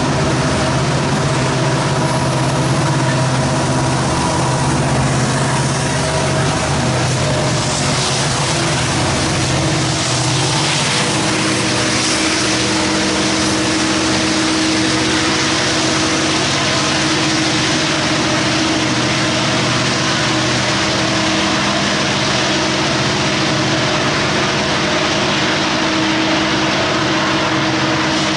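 Diesel-electric locomotives, most likely the two EMD SD70ACU pushers at the rear, running hard under load as they shove a loaded grain train uphill, with a steady, loud engine drone. The sound shifts between about eight and twelve seconds in.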